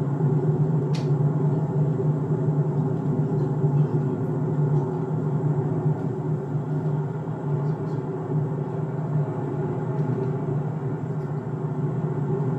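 Steady low drone of a car cruising at highway speed: engine and tyre noise, with a single sharp click about a second in.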